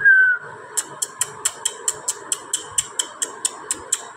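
A person calling a dog: a whistle that ends about half a second in, then a quick even run of sharp clicks, about four to five a second, until near the end.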